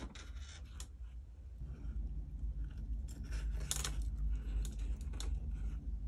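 Small steel jewellery pliers picked up and handled on a tabletop, giving a few scattered light metallic clicks and clinks over a low steady hum.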